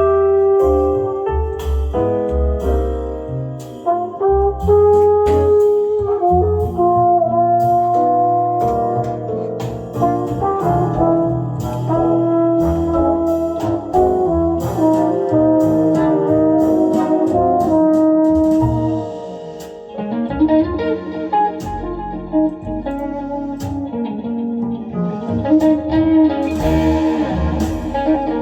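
Brass-led, jazz-style song with trumpet melody over drums, played back through a pair of vintage Pioneer CS-410 loudspeakers. The music dips briefly in level a little past the middle, then carries on.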